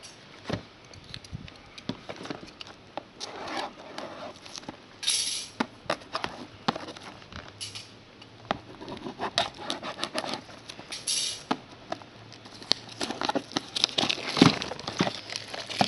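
Plastic shrink wrap and cardboard being handled as a sealed box of trading cards is opened: crinkling and rustling with many small clicks, and a couple of longer tearing rustles about five and eleven seconds in.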